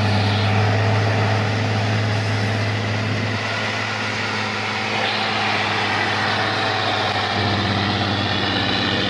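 Old logging truck loaded with logs, its engine running at low, steady revs as it crawls along. The engine note shifts a little about three seconds in and again late on.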